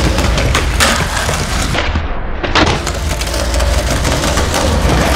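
Skateboard wheels rolling on concrete paving over a steady low rumble, with a few sharp clacks from the board.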